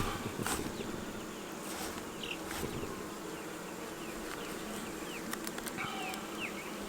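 Honeybees buzzing around an open hive: a steady hum with individual bees flying close past, and a couple of light clicks near the start.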